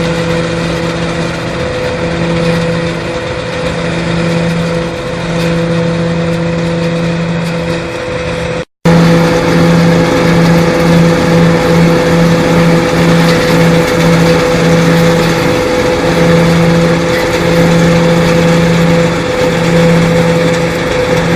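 A machine's motor running with a steady pitched hum and a lower tone that cuts in and out irregularly. The sound drops out briefly about nine seconds in, then comes back a little louder.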